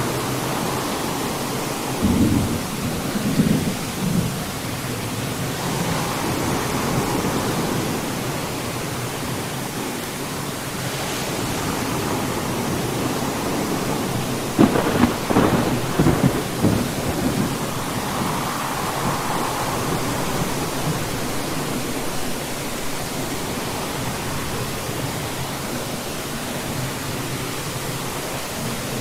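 Steady rain falling through a thunderstorm, with two rolls of thunder: a short one about two seconds in, and a longer, louder rumble with several cracks near the middle.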